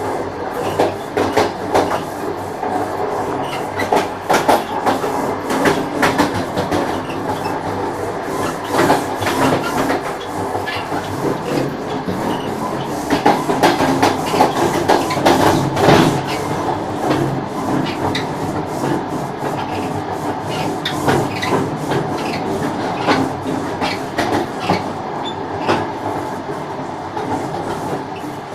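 Battery-powered toy locomotive running on plastic track: a steady motor whir under many irregular clicks and clatter from its wheels on the rails.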